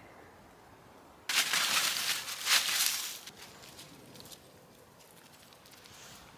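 Crunching, rustling noise for about two seconds, starting a little over a second in, then fainter scuffing: footsteps on a wet, leaf-strewn path.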